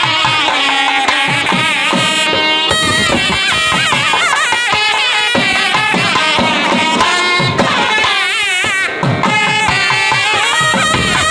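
Several nadaswarams, the long double-reed temple pipes, played together in a loud Carnatic melody with sliding, wavering ornamented notes.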